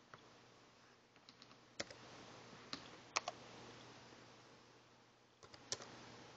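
A few separate faint clicks of computer keys being pressed, spaced irregularly a second or so apart.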